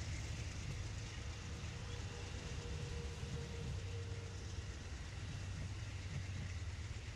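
Steady low rumble of an Amtrak passenger train rolling along the rails, with a faint steady tone about two seconds in that lasts a few seconds.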